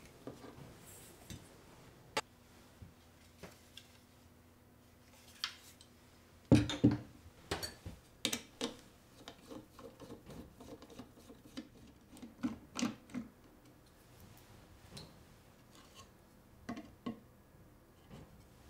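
Workbench handling sounds: scattered clicks, taps and knocks, loudest in a cluster about six and a half seconds in. They come from a steel ruler and pen on an MDF board, and a screwdriver taking the screws out of a trimmer router's clear plastic base plate before the plate is lifted off.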